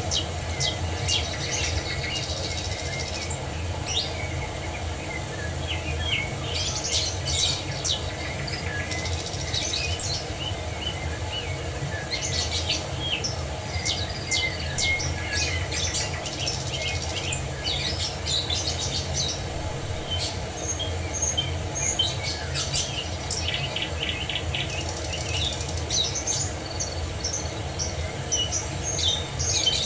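Several birds singing, with many short chirps and trills coming and going, over a steady low background rush.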